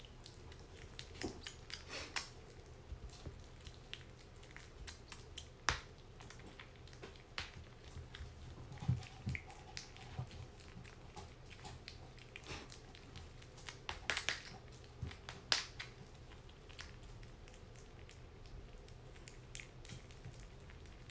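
A kitten eating wet cat food from a small dish: irregular wet chewing and lapping smacks, busiest through the middle and thinning out over the last few seconds.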